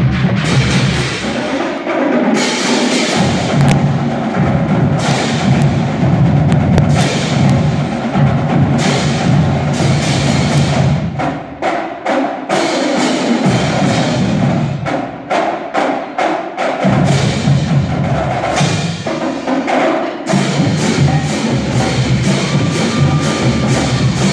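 Drumline playing a percussion routine on snare drums and cymbals: dense, rapid stick strikes over a steady low pitched part, settling into evenly spaced hits near the end.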